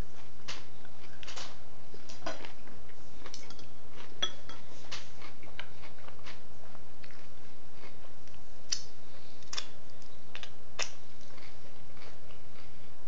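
Cutlery clinking and tapping against a plate as a meal is eaten, in scattered, irregular knocks, over a steady low hum.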